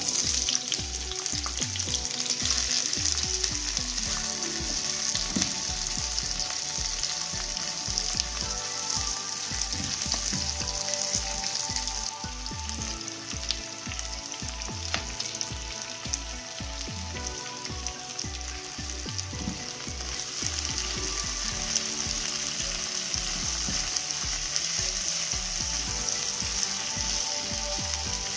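Chopped onions with ginger-garlic paste sizzling in hot olive oil in a nonstick wok, with a dense hiss and scattered crackles that start suddenly at the outset.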